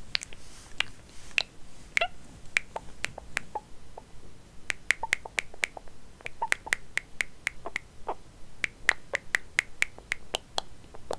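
A run of sharp, irregular clicks and taps, coming several a second in places.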